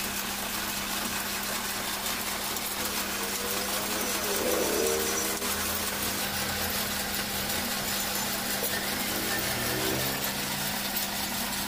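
Metal lathe running steadily with a constant hum while its tool turns down a long metal shaft.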